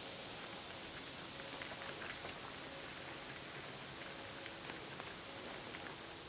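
Quiet open-air ambience: a steady faint hiss with scattered small rustles and ticks, and no one speaking.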